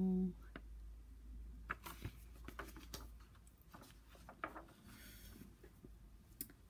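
Pages of a picture book being turned and handled: faint scattered rustles and light taps of paper over a low steady hum.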